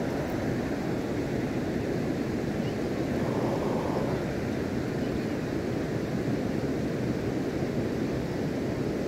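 Fast river current rushing steadily, an even noise with no breaks.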